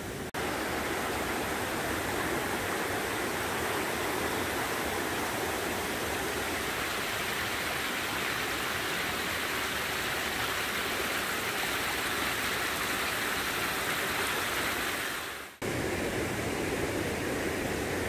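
Mountain stream rushing and splashing down a small cascade between boulders: a steady hiss of moving water. It breaks off briefly twice, just after the start and about fifteen seconds in.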